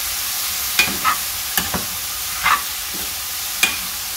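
Shredded cabbage and egg sizzling in a metal pot while a metal slotted spoon stirs it, the spoon knocking and scraping against the pot about six times at uneven intervals.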